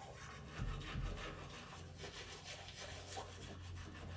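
Toothbrush scrubbing teeth in quick, rhythmic back-and-forth strokes, about three or four a second.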